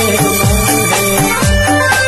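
Instrumental interlude of a karaoke backing track for a Hindi film love song, with no voice. A deep electronic kick drum that drops in pitch hits about twice a second under held synth melody notes.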